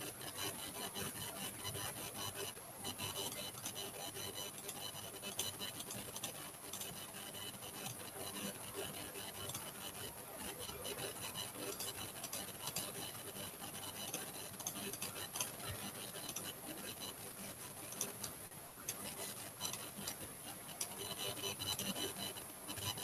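Faint steady hiss with scattered light clicks and soft rubbing, the sound of someone working a mouse or drawing stylus at a computer.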